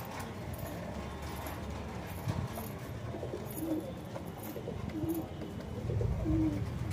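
Kasni fancy pigeon cooing: three short low coos about a second and a half apart in the second half, over a low background rumble.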